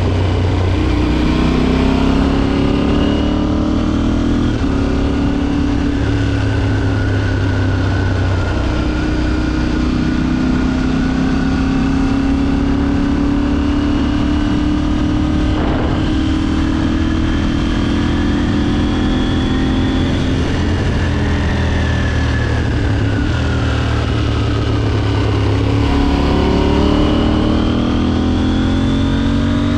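KTM 790's 799 cc parallel-twin engine running under way, its pitch rising under throttle and dropping back with gear changes and easing off, then climbing again near the end.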